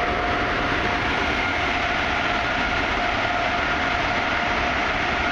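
Car wash dryer blowers running: a loud, steady rush of air with a constant whine.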